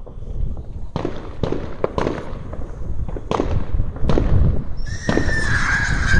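New Year's Eve fireworks going off: a string of sharp bangs over a low rumble. About five seconds in, a whistling firework starts a high, steady whistle that falls slightly in pitch.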